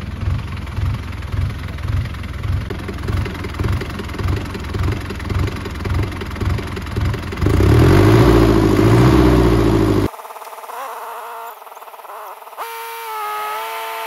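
Diesel tractor engine being started: slow, even chugging, about two pulses a second, until it catches about seven and a half seconds in and runs loud, puffing black exhaust. The sound cuts off abruptly about ten seconds in, leaving a quieter steady hum whose pitch steps up and down.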